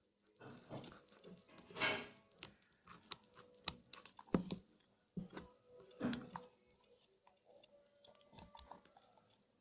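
Slime being squeezed and poked by hand, giving irregular wet clicks and small pops, with a couple of longer squelches.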